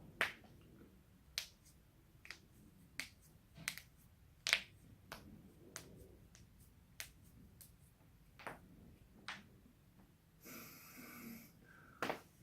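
Neck and back joints cracking: a string of about sixteen sharp pops at an uneven pace of one or two a second, some louder than others. There is a breathy noise lasting about a second shortly before the last loud crack.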